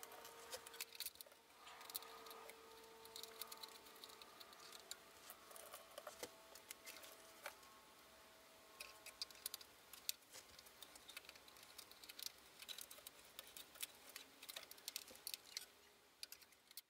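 Faint, irregular light clicking and ticking of small metal screws and a screwdriver as screws are picked up and driven in to mount a circuit board.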